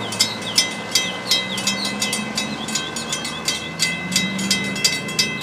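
Florida East Coast Railway freight cars of a rail train rolling past, their wheels clicking over rail joints about three to four times a second. Steady high-pitched ringing tones run throughout, with a low rumble that swells around the middle.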